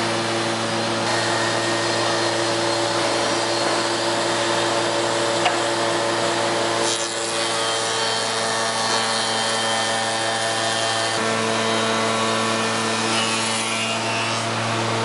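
Soukup Crafter window machining centre running, its cutters machining timber window parts over a steady motor hum and hiss, the tone shifting a couple of times as the work moves on.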